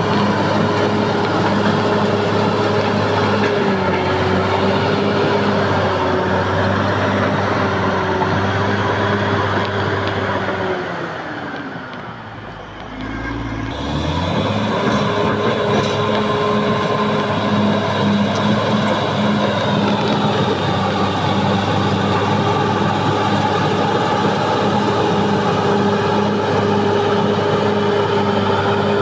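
Caterpillar D6R XL bulldozer's diesel engine running steadily under work, with a high whine over it. Midway it drops in pitch and level for a few seconds, then picks back up.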